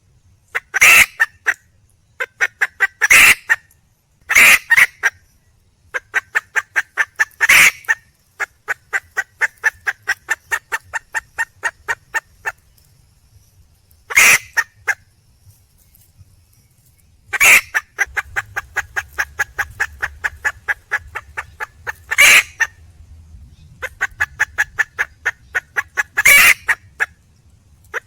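Junglefowl hen calling for a mate: sharp, loud single calls every few seconds, between long runs of rapid clucks at about five a second.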